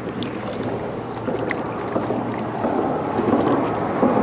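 River water running steadily over rocks, with a few faint clicks mixed in.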